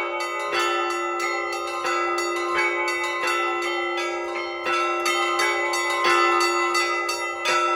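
Russian church bells being rung in the traditional zvon: smaller bells struck in quick, overlapping strokes over the unbroken ring of a deeper bell.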